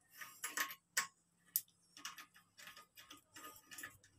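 Metal wrench clicking and scraping against the toilet tank's water-supply fittings in short, irregular strokes, about two a second, as the connection under the tank is tightened.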